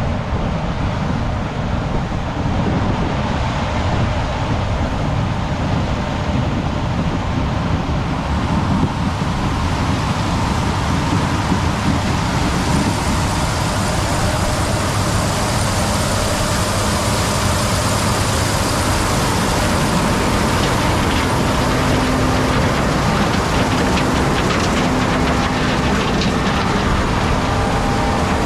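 Steady, loud running of heavy vehicle engines, growing brighter in tone about halfway through, with a steady hum line joining in the last third.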